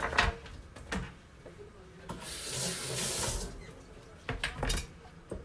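Kitchen tap running briefly, an even hiss of water lasting about a second and a half, starting about two seconds in. Sharp knocks and clinks of utensils on the counter come just before it and again a second or so after it stops.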